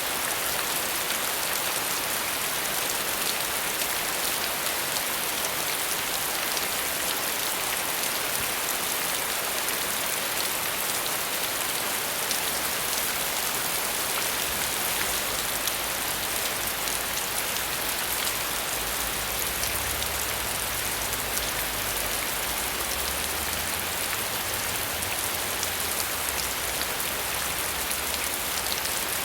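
Steady rain falling, an even hiss with many fine drop hits.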